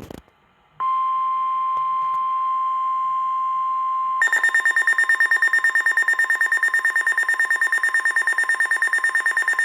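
NOAA Weather Radio's 1050 Hz warning alarm tone, a loud, steady single high tone starting about a second in, signalling a new severe thunderstorm warning. After about four seconds a higher, rapidly pulsing alert alarm joins it over the steady tone.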